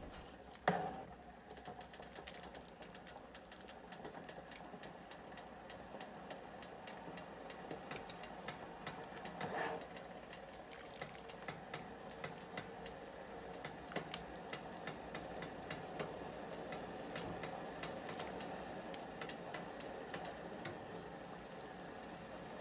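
Pot of collard greens simmering, bubbling with rapid, irregular small pops throughout, with a single clunk just under a second in.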